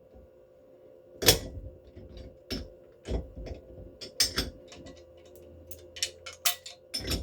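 Metal hand tools, torque wrench and sockets, being handled: a run of irregular sharp clicks and clinks, the loudest about a second in, with a faint steady hum underneath.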